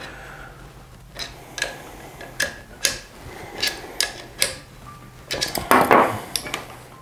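Irregular metallic clicks and taps as a rifle scope's mount is seated and clamped onto the receiver rail of a Sako TRG M10, with a louder cluster of knocks near the end.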